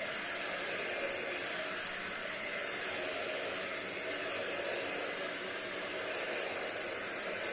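Euro-Pro 2-in-1 stick vacuum running steadily on a hard floor: a high motor whine over a lot of rushing airflow.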